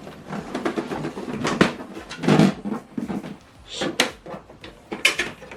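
Photo paper and the plastic rear input tray of an HP DeskJet inkjet printer being handled: paper sliding and rustling with irregular plastic clicks and knocks as the paper-width guide is adjusted, and a duller knock about two and a half seconds in.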